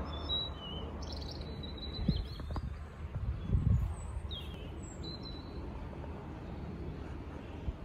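Small birds chirping in the background: several short, high chirps in the first half, then a couple more around four to five and a half seconds in. Under them runs a low rumble with a few dull low thumps, about two and three and a half seconds in.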